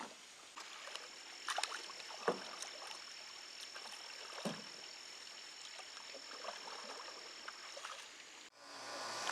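Quiet sloshing and small splashes of pond water around a small pontoon boat, with scattered light knocks and a thin steady high whine over most of it. Near the end it cuts abruptly to a loud steady rushing noise.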